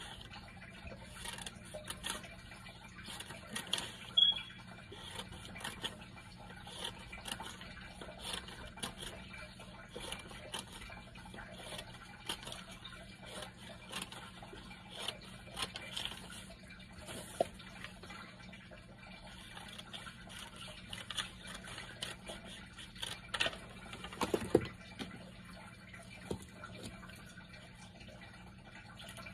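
Scissors snipping through paper, with paper rustling, in irregular short cuts, over a faint steady hum.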